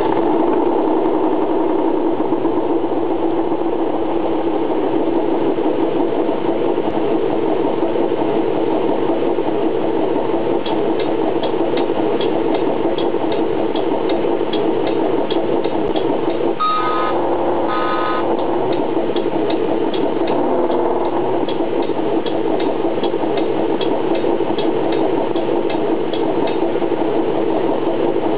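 Engine sound effect from an RC model's electronic sound unit running steadily. A regular light ticking sets in partway through, and two short higher tones sound just past the middle.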